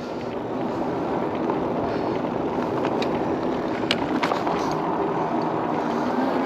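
E-bike rolling along an asphalt street: a steady rumble of tyres on the pavement that builds over the first second as it picks up speed, with a few small clicks.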